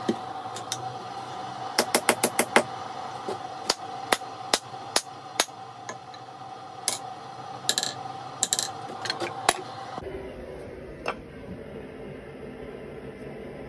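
Hammer blows on the end of a hickory handle, seating a forged rounding hammer head that stands on the anvil: a quick run of about six sharp knocks about two seconds in, then single and paired knocks every half second to a second. The knocks stop near ten seconds, with one more a second later.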